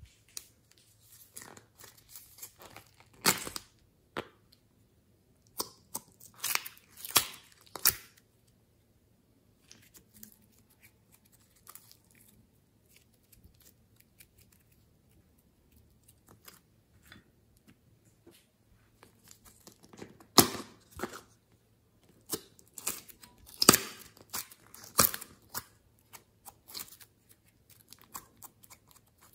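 Soft clay and glossy slime being stretched, squeezed and kneaded by hand, giving sticky crackling, snapping and tearing sounds in bursts, sparse and quiet in the middle stretch.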